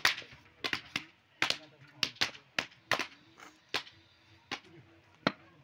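A heavy cleaver chops through a sheep's leg meat into a wooden chopping block, landing about a dozen sharp, irregular strikes.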